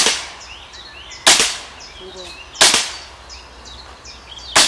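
Scoped carbine fired four times: three sharp shots at an even pace about a second and a quarter apart, then a fourth after a two-second pause, each with a short echo.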